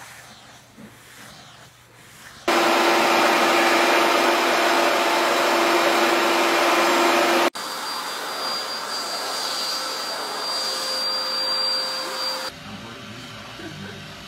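Vacuum cleaners running, one after another: a loud steady whoosh with a low hum starts suddenly a couple of seconds in, then cuts off abruptly about halfway through. A second vacuum's steady whoosh with a high whine takes over, and near the end it gives way to a quieter running sound.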